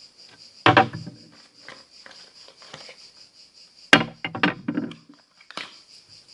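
A few knocks and clattering handling sounds: one about a second in and a quick cluster around two thirds of the way through, over a steady high-pitched whine.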